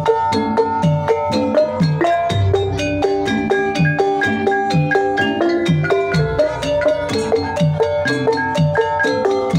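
Javanese gamelan ensemble playing an instrumental gending in Banyumasan style. Bronze kettle gongs and metallophones ring out interlocking struck notes over the kendang's low, pitch-bending drum strokes, which lead the rhythm.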